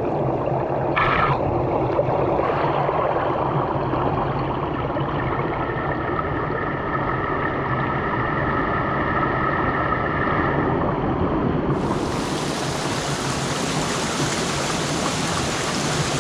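Small mountain trout stream running over rocks: a steady rush of water that turns brighter about twelve seconds in.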